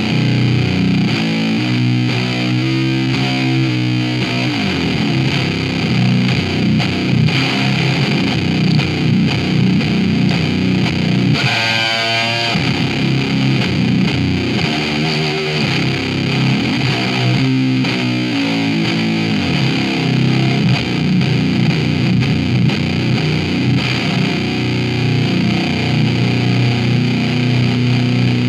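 Electric guitar played through a breadboarded BS170 MOSFET clean boost into a RAT distortion pedal, giving heavily distorted sustained notes and chords. A high note with vibrato comes near the middle.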